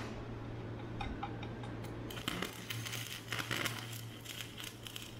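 Stick-welding arc on a preheated aluminium bracket: a few scratchy clicks as the electrode is struck about a second in, then from about two seconds in the arc catches and crackles and sputters irregularly as a tack weld goes down.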